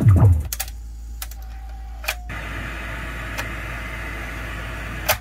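Music from an Alpine 7385 car stereo stops abruptly as its buttons are pressed, followed by sharp button clicks and a short beep. Then a steady hiss of FM static while the tuner is in seek mode, ended by a click near the end.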